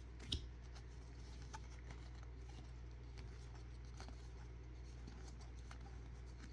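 Topps baseball cards being thumbed off a stack in the hands one by one: faint rustling and soft ticks, with one sharper click about a third of a second in, over a low steady hum.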